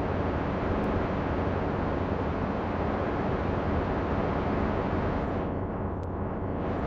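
AI-generated wind sound meant as the wind of Mars: a steady rush of wind noise, heaviest in the low end. Near the end its higher part drops away for about a second.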